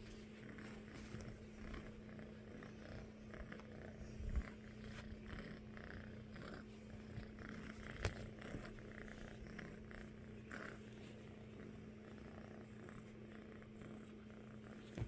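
Orange tabby kitten purring softly and steadily, with two brief knocks about four and eight seconds in.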